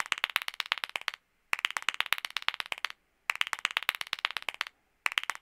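Applause: runs of fast clapping about a second and a half long, repeated about four times with short silent breaks between.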